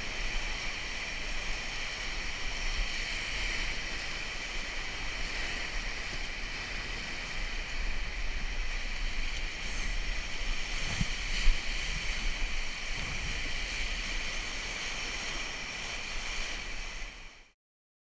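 Whitewater rushing steadily around an inflatable raft running a high-water rapid, with a low rumble under it and one short thump about eleven seconds in. It cuts off abruptly just before the end.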